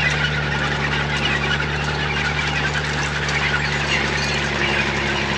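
Engine idling steadily, a low even hum with an unchanging pitch, under a faint hiss.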